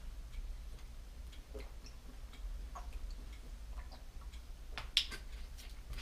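Faint, irregular light clicks and ticks over a steady low hum, with one sharper click about five seconds in.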